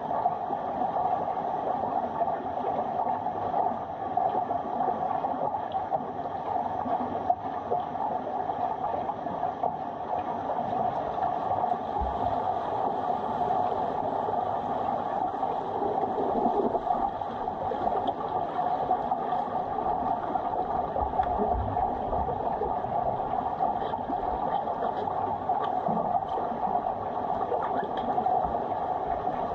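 Steady underwater noise of a swimming pool, heard by a submerged camera: an even, muffled rushing with a few faint clicks.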